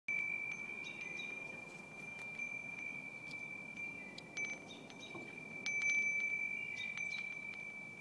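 Hummingbird bell wind chime with three small bells, struck repeatedly as it sways: soft, light tinkling strikes over one steady ringing tone, loudest about six seconds in.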